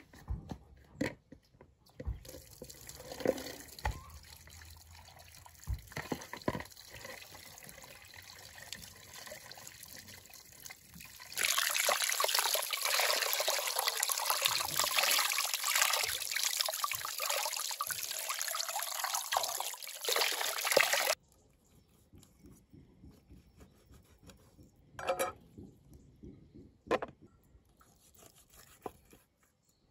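Tap water pouring and splashing over a whole raw chicken into a plastic bowl as it is rinsed. The loud splashing lasts about ten seconds in the middle and cuts off suddenly. Faint knocks and handling sounds come before it, and a few sharp clicks come after.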